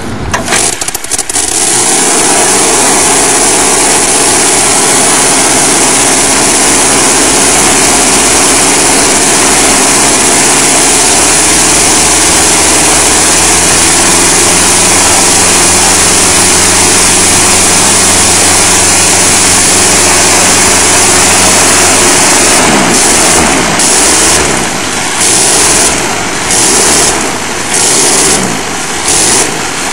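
A one-third-scale 1913 80 hp Le Rhône rotary engine, running on gasoline and castor oil, catches as soon as its propeller is swung by hand and runs steadily at full throttle. About 23 seconds in, the engine note drops, and then it cuts out and comes back again and again, roughly once a second.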